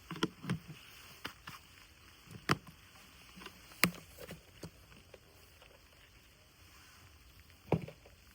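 A handful of sharp, irregular taps and knocks over a faint, steady hiss; the loudest comes a little under four seconds in, and one more comes near the end.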